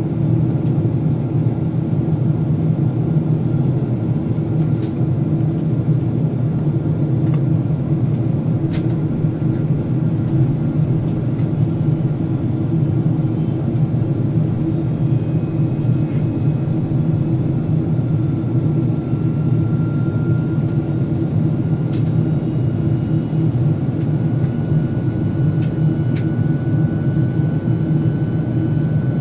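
Steady cabin noise of a Boeing 767-400ER in descent: a low rumble of engines and airflow, with a faint thin whine that creeps up in pitch over the last third and a few faint ticks.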